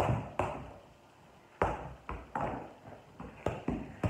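A soccer ball being juggled: irregular thuds of the ball off a bare foot and on a wooden floor, each ringing briefly in the room, with a pause of about a second after the first two.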